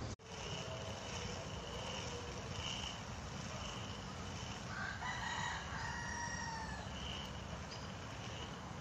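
A rooster crows once about five seconds in, one drawn-out call lasting about a second, over faint repeated chirps.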